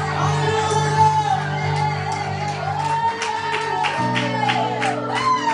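Live worship music: held low chords that shift about three and four seconds in, with a voice singing long gliding notes above them and a steady beat of short strums or strikes.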